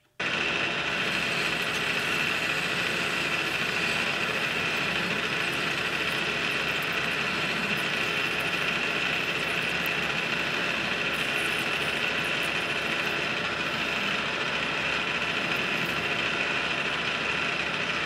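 Metal lathe running, a WNMG carbide insert taking a turning cut on a steel shaft: a steady, even machining noise that cuts in abruptly at the start.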